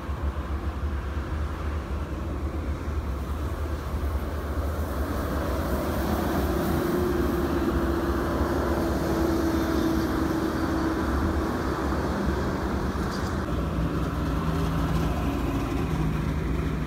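Toll-road traffic: a steady rumble of tyres and engines from passing vehicles. A coach goes by in the middle, its engine hum heard for a few seconds, and another steady hum comes up near the end.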